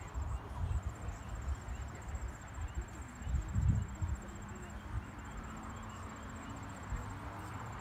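Crickets chirping steadily under low gusts of wind buffeting the microphone, the strongest gust about three and a half seconds in.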